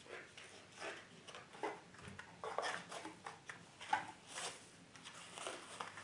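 Paper wrapping being handled and unfolded, a run of short, irregular rustles and crinkles.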